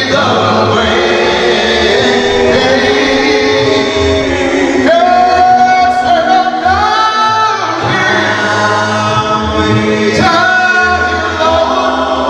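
Male a cappella gospel group singing in close harmony into handheld microphones, with a low bass voice underneath. Near the middle a long held high note rises in pitch over the chord.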